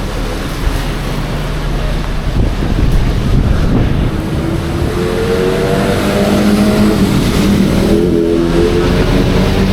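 Steady heavy rain hiss with a motor vehicle engine running close by, coming in about five seconds in with its pitch rising slightly.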